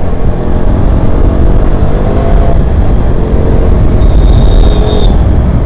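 KTM RC 200's single-cylinder engine running as the motorcycle rides along, its pitch shifting a little midway, over a heavy low rumble. A thin high tone comes in about four seconds in and lasts about a second.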